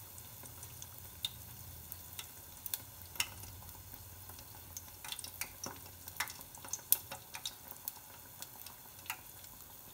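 A moong dal vada frying in hot oil in a pot: a faint steady sizzle with scattered sharp crackles and pops throughout.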